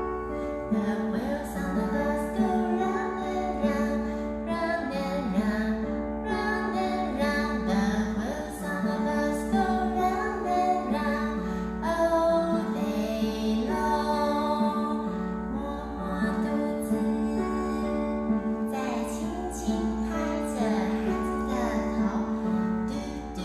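Gentle lullaby music: a woman singing softly over a sustained instrumental accompaniment.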